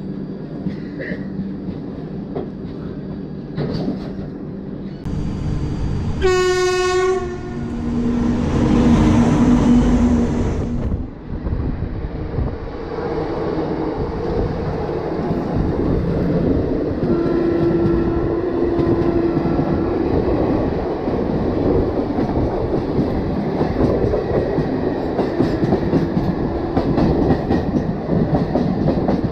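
Passenger train running on the rails, with steady rumble and clickety-clack of the wheels. About six seconds in a short horn blast sounds, followed by a loud rushing noise for a few seconds, and a fainter, longer horn tone comes in around the middle.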